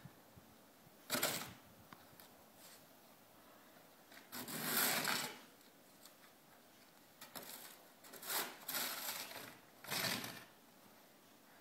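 Snow shovel scraping and pushing through snow, in about six separate strokes of a second or less, the longest near the middle.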